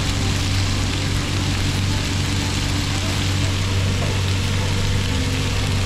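Steady sizzling of noodles and vegetables stir-frying in a hot wok, over a constant low hum.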